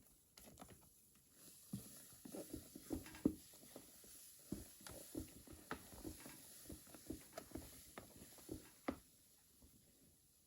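Faint, irregular soft taps and scrapes of a utensil working a cream cheese filling by hand in a bowl, about one or two a second, stopping near the end.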